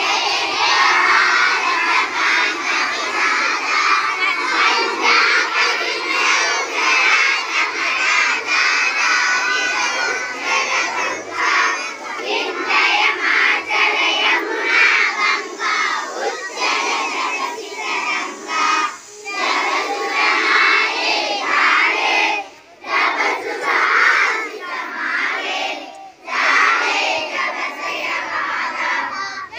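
A large group of young children chanting aloud together, with a few short breaks between phrases in the second half.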